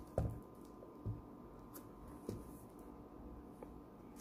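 Light handling sounds as a Teclast F7 Plus laptop's lid is lifted open: a few soft knocks and taps, near the start, about a second in and a little after two seconds.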